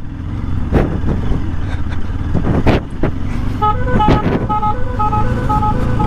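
Pulsar RS200 motorcycle engine running at low speed, with a few knocks. From about three and a half seconds in, a musical bus horn fitted to the bike plays a quick tune of short repeated notes that step between two pitches.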